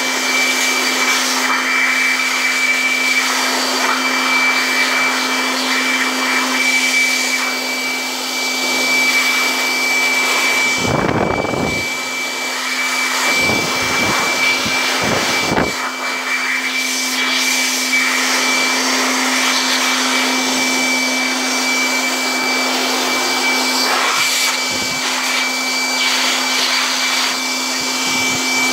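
Electric air blower running steadily: a rush of air with a steady motor hum and a thin high whine. A few brief low bumps come about halfway through.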